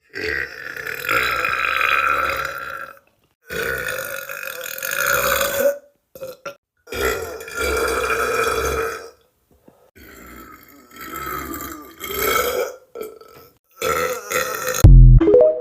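Deliberate burps, one after another. First come several long drawn-out ones of two to three seconds each, then shorter ones, and near the end a sudden, low burp that is the loudest of all.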